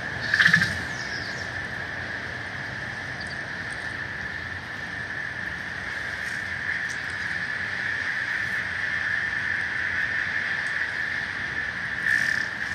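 Floating pier pontoon creaking against its steel pile and rubber fenders as it rides the water, with a loud squeal about half a second in and another near the end, over a steady hiss of water and harbour noise.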